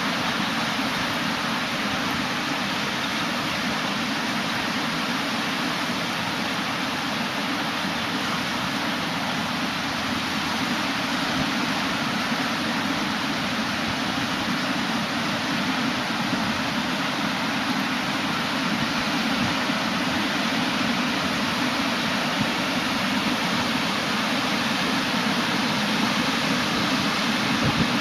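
Ocean surf washing on the shore: a steady, even rush of waves with no breaks.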